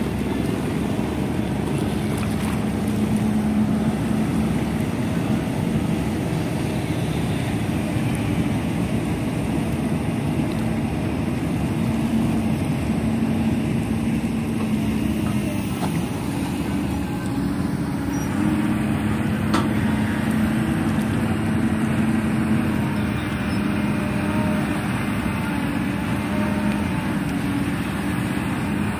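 An engine running steadily: a continuous low drone with a hum that wavers slightly in pitch and never stops.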